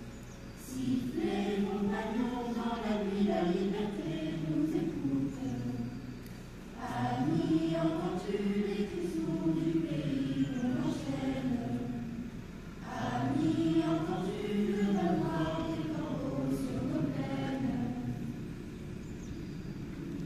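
A choir singing slowly in three long phrases, each rising and falling in pitch, with short breaths between them.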